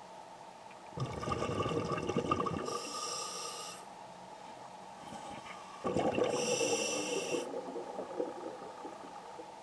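A scuba diver breathing underwater through a regulator: two breaths about five seconds apart, each a rush of bubbles with a high hiss from the regulator.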